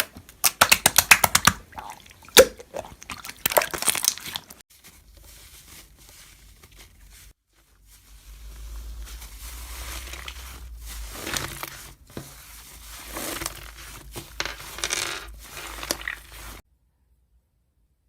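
Paper or plastic being crinkled and torn, with a quick run of sharp crackles and clicks in the first few seconds, then quieter rustling and handling; the sound cuts off abruptly near the end.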